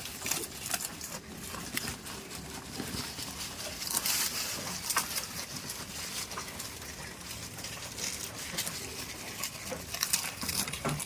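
Goats moving about at close range: scattered clicks, knocks and rustling over a steady background hiss, with no clear bleat.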